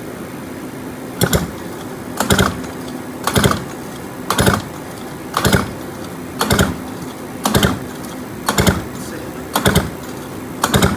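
Recoil pull starter yanked about once a second, cranking over a two-stroke Yamaha YT125 engine fitted with a DT175 cylinder, with a compression gauge in place of the spark plug; each pull is a short doubled rasp. The gauge reads only about 100 psi, which puzzles the owners.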